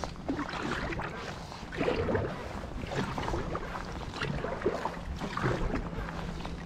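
Paddle strokes splashing in river water, a stroke about every second, over a thin steady low hum.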